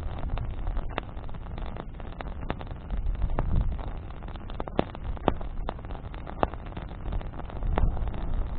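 Campfire of burning branches crackling, with sharp pops and snaps every second or so over a steady low rumble.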